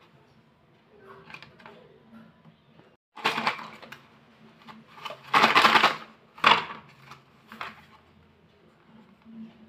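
Small cardboard slate-pencil boxes handled and opened by hand over a plastic tray: several short bursts of rubbing and scraping, the longest about five and a half seconds in, with quieter handling between.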